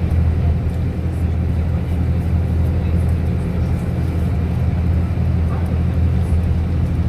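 Steady low rumble of a road vehicle driving at speed on an expressway, heard from inside the cabin: engine and tyre noise.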